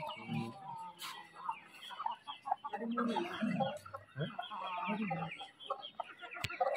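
A flock of chickens clucking and chirping, many birds calling over one another, with a single sharp click near the end.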